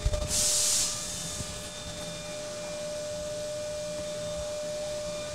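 DATRON CNC milling machine between cuts: a few knocks, then a sharp hiss of air lasting about half a second, followed by a steady machine hum with a constant whining tone while the rotary-tilt unit turns the part to a new angle.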